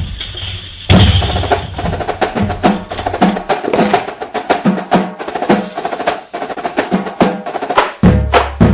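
Background music with a fast percussion beat of sharp, clicking strokes over a pitched line; a deep bass drops out for the middle stretch and comes back near the end.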